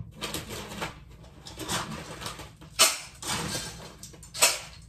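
Rustling and clattering as dry dog food and a steel dog bowl are handled, with two sharp rattles about three and four and a half seconds in.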